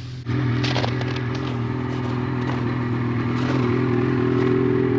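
Snowmobile engine idling steadily, with a little clattering and scraping about a second in.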